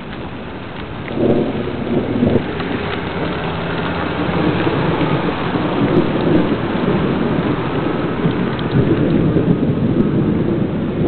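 Thunder rumbling over steady rain; the rumble swells suddenly about a second in and keeps rolling.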